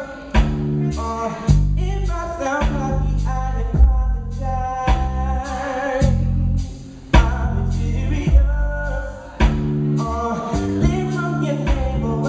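Music: an R&B/soul song, with singing over drums and a heavy bass line.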